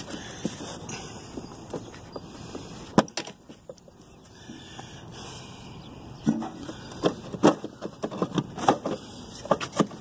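Pliers and wire connectors handled at a refrigerator's control board: irregular clicks and taps, with one sharp click about three seconds in and a quicker run of clicks in the second half.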